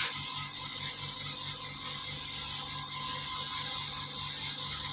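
Small air-compressor-type machine running with a steady hiss of escaping air over a low motor hum; the hiss dips briefly about once a second.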